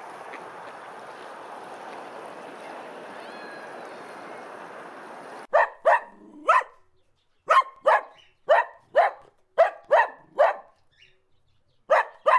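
A steady rushing noise for about five seconds, then a cut to a dog barking: about ten short, sharp barks in an uneven series, the last after a short pause near the end.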